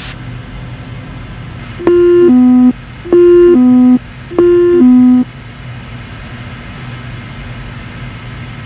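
Three loud two-tone alert chimes, each a higher note stepping down to a lower one, about a second and a quarter apart, over the steady cabin drone of a Cirrus SF50 Vision Jet. They are the Garmin avionics' autopilot-disconnect alert, as the autopilot is switched off on final approach.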